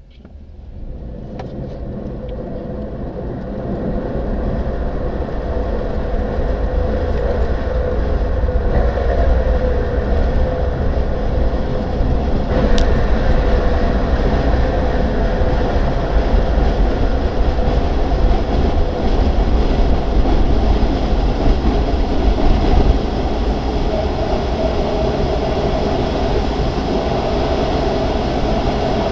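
Grob 103 glider on its aerotow takeoff roll, heard from inside the cockpit: a heavy rumble of the wheel on the runway and rushing air that builds over the first few seconds as it gathers speed, then holds steady. The tow plane's engine drone wavers faintly underneath, and there is a single click about halfway through.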